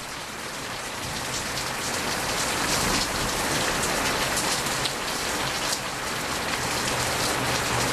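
Heavy rain pouring down in a thunderstorm downpour: a steady hiss of rain on surfaces, with drops striking close by, building a little in the first few seconds.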